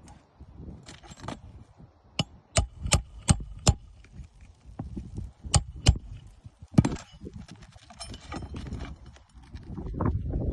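Nails being driven into asphalt roof shingles: a quick run of five sharp knocks about two seconds in, then a few more single strikes, with softer knocks and handling noise between them.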